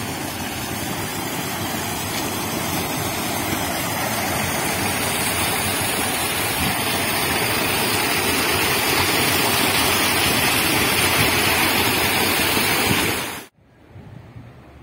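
Fast-flowing stream water rushing and spilling over the edge of a brick channel in a small cascade, a steady loud rush that grows slightly louder. It cuts off abruptly about thirteen seconds in, leaving a much quieter background.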